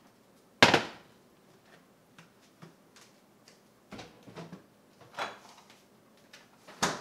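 A heavy slow-cooker crock set down hard on the stove with one loud knock about half a second in, then a few lighter knocks and clatter at the open refrigerator, and another sharp knock near the end as the refrigerator door is shut.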